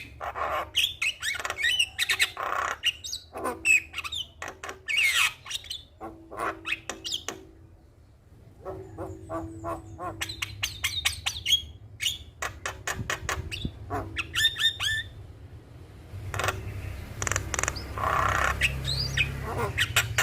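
Javan myna (jalak kebo) calling: harsh squawks mixed with chattering whistles and chirps in quick bursts, with a brief lull about eight seconds in.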